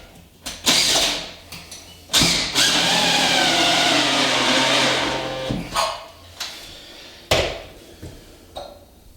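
Drill driving the last screw through a grab bar into a tiled shower wall: a short burst, then about three seconds of steady running, followed by a few sharp knocks.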